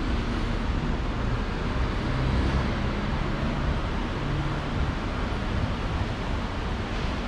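Steady low vehicle-engine rumble under a constant hiss of noise, with no sudden sounds.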